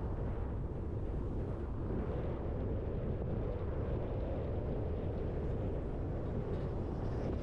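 Steady low rumble of a car driving along, tyre and wind noise with no distinct events.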